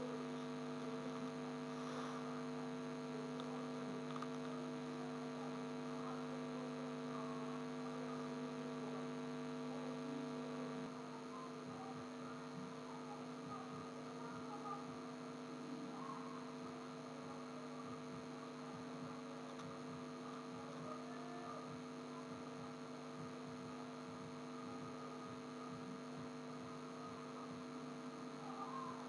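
Steady, faint electrical mains hum made of several steady tones. About eleven seconds in, the lowest tone stops and the hum becomes slightly quieter.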